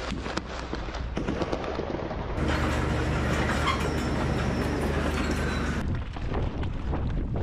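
Heavy tracked military vehicle running nearby: a steady low engine hum with clattering track noise. The sound changes abruptly about two and a half seconds in and again about six seconds in.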